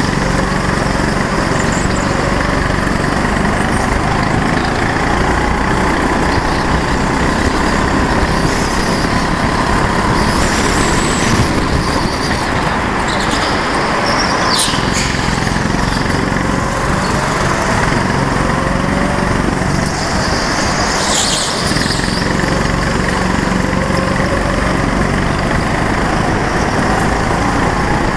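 Go-kart engine running at racing speed, its pitch repeatedly climbing as the throttle opens out of the corners, over a steady rush of wind noise on the onboard microphone.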